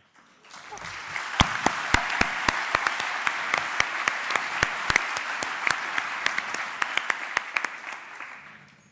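Audience applause that swells about half a second in, holds, and fades away near the end, with many sharp single claps close to the microphone standing out from the crowd.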